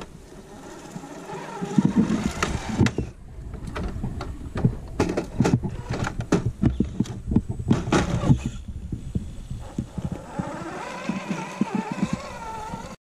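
Axial SCX10 II Jeep Wrangler RC crawler climbing rock, its electric motor and gears whining. Through the middle comes a run of sharp clicks and knocks. Near the end the whine rises and falls as the crawler rights itself and drives on.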